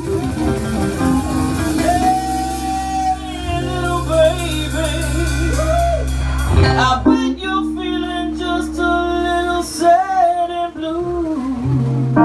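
Live blues band: a woman singing the lead over electric guitar, bass and drums. The bass drops out about halfway and comes back in near the end.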